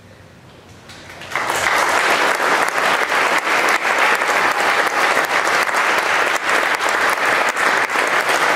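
Audience applause: a few scattered claps, then about a second and a half in it swells into full, steady clapping from a large crowd.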